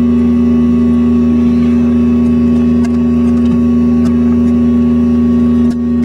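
Steady electronic buzz from a homemade switch-box oscillator circuit: a loud low tone with overtones and a thin high whine above it, dipping briefly near the end.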